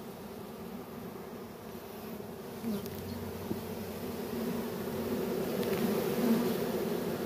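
A honeybee swarm, freshly shaken from a tree branch, buzzing in a steady hum that grows gradually louder.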